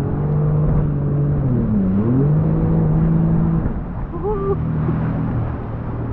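Small boat's engine running steadily on the lake; its pitch dips and comes back up about two seconds in, and it drops to a lower, quieter running about halfway through as the throttle is eased off.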